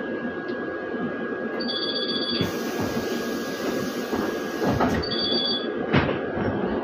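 Inside a trolleybus standing still: a steady electrical whine over cabin hum, with a hiss from about two and a half to five seconds in, two short high beeping tones, and a couple of clicks near the end.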